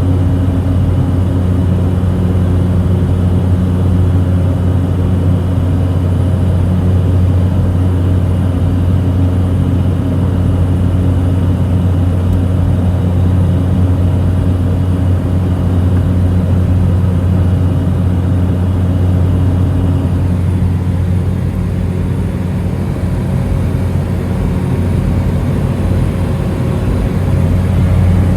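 Cessna Caravan's single PT6A turboprop engine and propeller running steadily at high power, a loud, even low drone with a constant pitch that eases off slightly about two-thirds of the way through.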